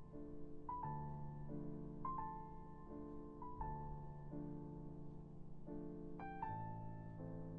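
Soft background music: slow, gentle piano notes sustained and changing about once a second.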